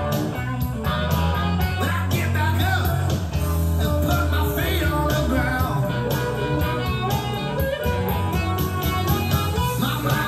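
Blues-rock song with guitar, bass and drums and some singing, playing as it is recorded onto a cassette tape.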